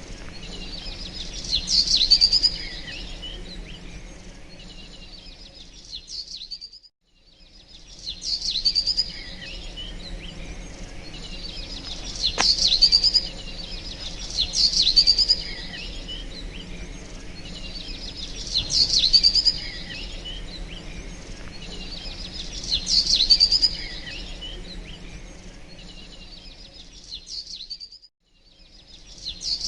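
Small birds chirping and singing in bursts every few seconds, over a steady low hum. The sound cuts out briefly twice.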